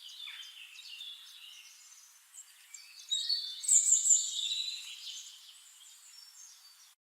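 Several birds chirping and singing with many short, overlapping calls, loudest about halfway through; the sound cuts off abruptly just before the end.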